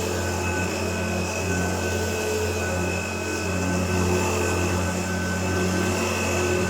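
1988 Hoover Turbopower U2332 upright vacuum cleaner running steadily: a constant motor hum with a steady high-pitched whine. The motor has been freshly serviced, with its bearings lubricated and its commutator skimmed.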